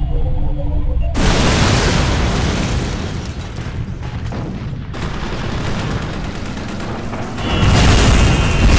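Explosion sound effects: a low drone, then a big blast about a second in that rumbles on, a second blast at about five seconds, and a louder third near the end with a thin falling tone over it.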